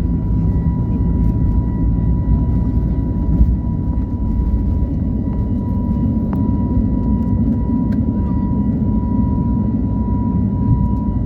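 Steady rumble of an Airbus airliner's jet engines and airflow heard inside the passenger cabin, with a faint thin steady whine above it.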